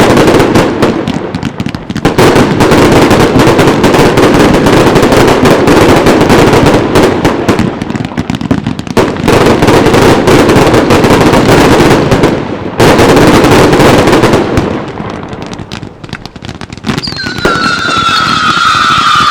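Fireworks going off in a dense barrage: rapid reports and crackling packed almost without a break, with a few short lulls. Near the end, several whistles start and slide slowly down in pitch over the continuing bangs.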